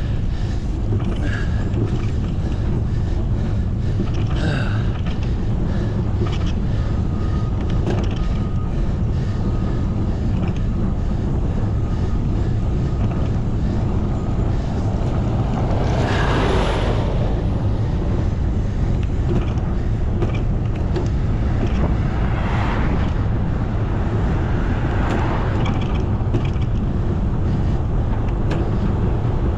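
Wind rumbling on the microphone while riding a bicycle, with road noise underneath. A louder rush of noise swells and fades about halfway through, with two smaller rushes later.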